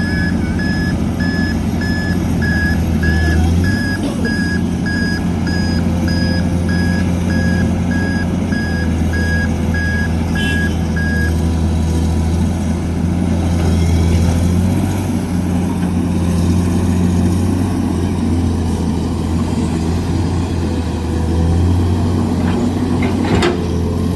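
Heavy diesel engine running steadily while a reversing alarm beeps about twice a second, the beeping stopping about halfway through. A single short sharp sound comes near the end.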